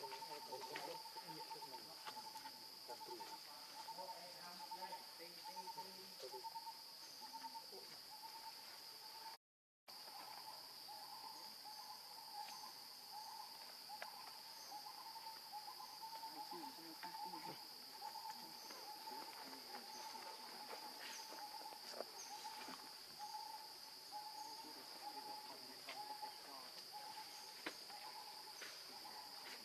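Faint forest ambience: a steady high insect drone with a lower, rapidly pulsing tone beneath it, and scattered faint ticks and rustles. The sound cuts out to silence for about half a second roughly a third of the way in.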